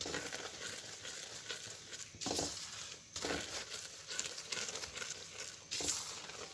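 Semolina sizzling as it roasts in hot oil in a steel pan, with a spoon stirring and scraping it round in uneven strokes. The semolina is being browned slowly on a low flame.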